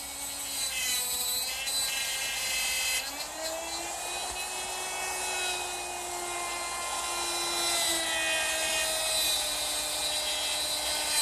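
Electric router with a dovetail bit running and cutting dovetails in wood: a steady high whine whose pitch drifts slightly, dipping about three seconds in and then rising again, cut off abruptly at the end.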